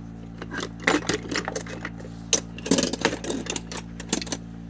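Steel sockets clinking and clattering against each other as they are rummaged through, in irregular clusters of sharp metal clanks.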